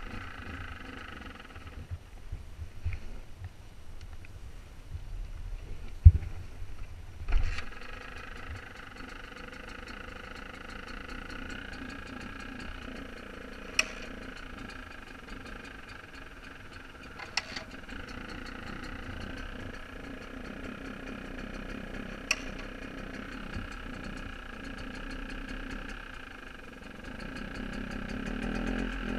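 Dirt bike engine: after a couple of thumps about six and seven seconds in, a steady idle sets in and runs on, growing a little louder near the end.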